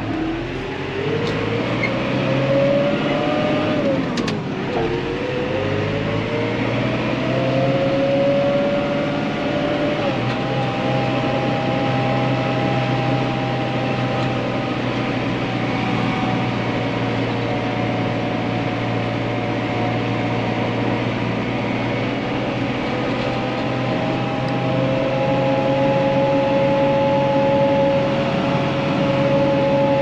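Massey Ferguson 4355 tractor's diesel engine, heard from inside the cab, pulling hard up a steep hill. The engine note rises, drops sharply about four seconds in, climbs again and then holds steady, lifting a little once more later on.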